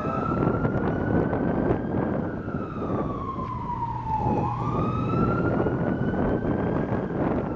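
Fire truck siren wailing, its pitch rising and falling in slow sweeps: up for the first two seconds, down until about four and a half seconds in, then up again and starting to fall near the end. Beneath it runs a steady loud rushing noise with a few sharp crackles.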